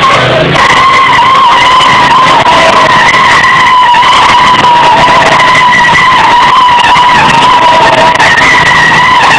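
Lawnmower giving off a loud, continuous high-pitched whine, wavering slightly in pitch and holding steady without a break.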